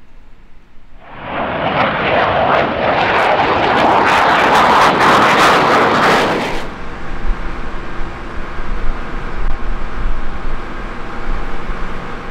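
Jet aircraft engine noise swelling up about a second in to a loud rushing sound with crackling through its loudest part. About two thirds of the way through it changes abruptly to a quieter, steady engine sound with a deep rumble and several steady whining tones.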